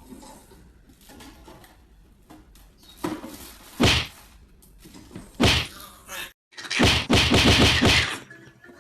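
Sharp knocks or thwacks: two loud hits a second and a half apart, a smaller one, then a louder rapid run of hits lasting about a second near the end.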